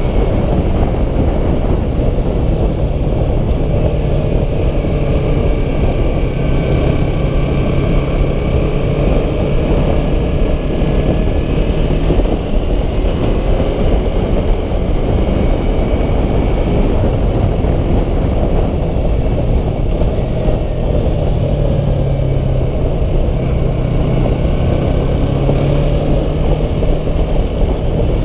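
Motorcycle ride heard from the rider's seat: the Yamaha R3's parallel-twin engine running at a steady cruise under heavy wind rush on the microphone.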